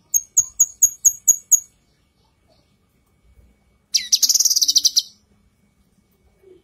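Female cucak kinoi (leafbird) calling: a run of about seven short, sharp chips over the first second and a half, then, about four seconds in, a fast high trill lasting about a second.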